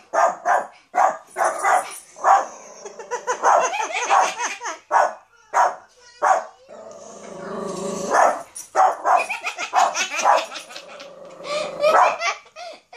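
Yorkie puppy barking over and over in short, sharp barks, several a second at times, at his own reflection in glass.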